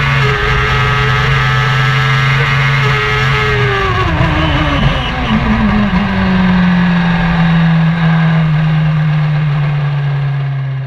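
Silver Car hillclimb race car engine heard loud from inside the cockpit, running hard at high revs. About four seconds in its pitch falls as it changes up from fifth to sixth gear, then it holds steady.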